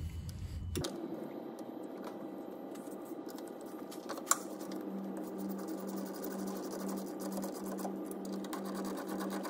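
Hand socket ratchet clicking in a steady rapid run as the brake caliper slider bolts are wound in, with one sharp metallic click a little over four seconds in.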